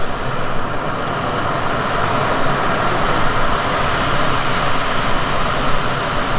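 Jet engine noise from an Airbus A340-300's four CFM56 turbofans, a steady, even rush that holds at one level throughout.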